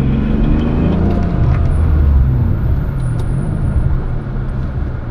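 Car engine running at low revs with tyre and road noise, heard from inside the cabin; the engine note shifts in pitch as the car drives on.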